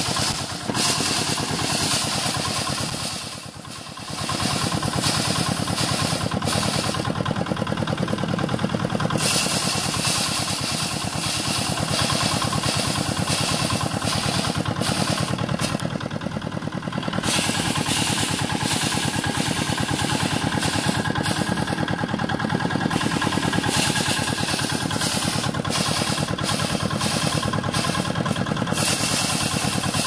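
Rice thresher's spinning wire-toothed drum beating grain from rice sheaves held against it: a steady, fast mechanical rattle that dips briefly twice.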